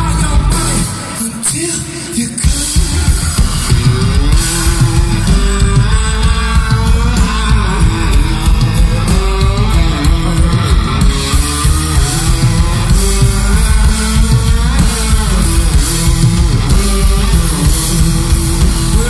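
Live rock band heard from the audience: a man singing the lead vocal over electric guitar and a full drum kit, loud and dense, with the band easing off briefly about a second in.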